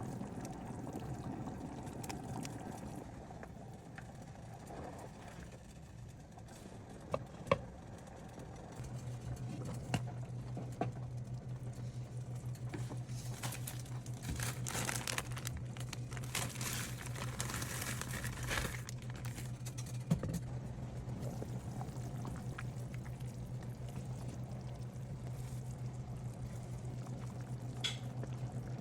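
Soup-making in a pot: liquid poured and sloshing, with a few sharp clinks of utensils. A steady low hum comes in about a third of the way through and keeps going.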